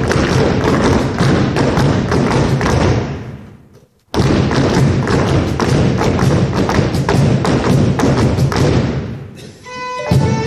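Hand drums playing a fast percussion break: rapid, steady beats that die away about four seconds in, start again abruptly, and fade out again near the end, where pitched melody notes on fiddle and whistle come back in.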